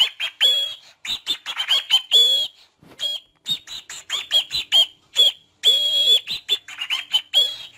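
Cockatiel chattering in quick runs of short chirps and whistles, with a longer held whistle about six seconds in.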